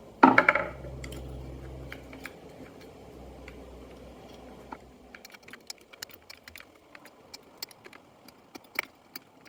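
Light metallic clicks and taps from a Torx driver and the trimmer's clutch parts being handled during disassembly, sparse at first and more frequent in the second half, with one louder scrape just after the start. A steady low hum underneath stops about halfway through.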